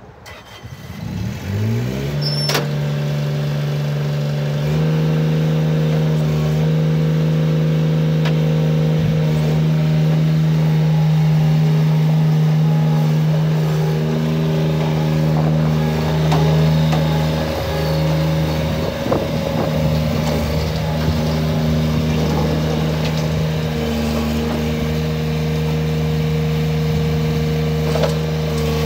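Bobcat 463 skid-steer loader's small three-cylinder diesel engine starting up, its speed rising and settling within about two seconds. About five seconds in it steps up to a higher throttle and then runs steadily while the loader drives and works its bucket, with a few light clicks.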